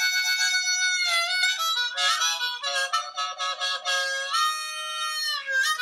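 Harmonica music: held chords and a stretch of quick short notes, with a note bent down near the end.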